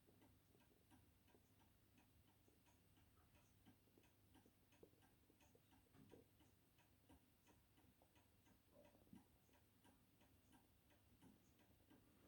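Near silence: quiet room tone with faint, regular ticking a few times a second and a couple of soft knocks.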